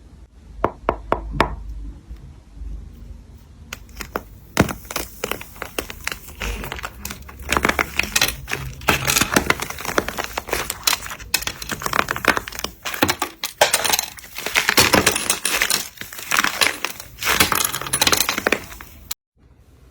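Slime being squeezed and pressed by hand, giving a dense run of sharp crackles, pops and clicks that stops suddenly near the end.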